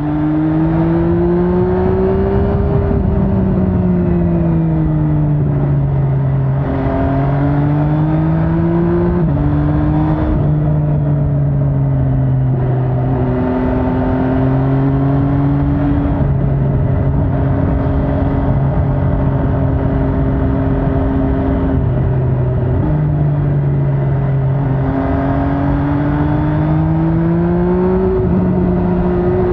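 MV Agusta Brutale 800's inline three-cylinder engine pulling through the gears while riding: its pitch climbs and drops sharply at each upshift, several times in the first ten seconds. It then holds a steady cruise for several seconds before accelerating and shifting up again near the end.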